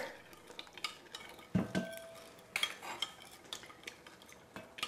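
Spoons stirring and tapping in bowls of dissolving lime Jell-O and Cool Whip, with light clinks of utensils against the dishes. A duller knock with a short ring comes about a second and a half in.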